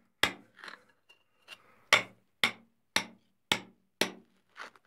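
Hand hammer striking a chisel held against brittle, decomposing bedrock to break off a sample. About ten sharp blows come at roughly two a second, a few lighter ones near the start and then a steady run.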